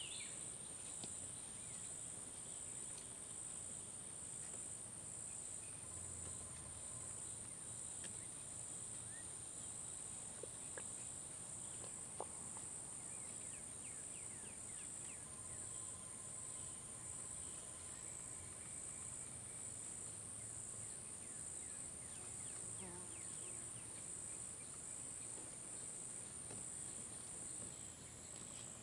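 Steady, high-pitched chorus of insects with an even pulse, and faint bird chirps now and then.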